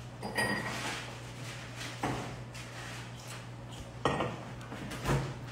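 Handling noise: four light knocks and clinks of hard objects, two with a brief high ring, over a steady low hum.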